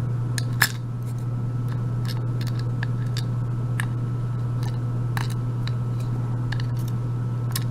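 A handful of light, sharp clicks and taps from handling the small metal parts of a disassembled euro cylinder lock, spread out over a steady low hum; the strongest click comes about half a second in.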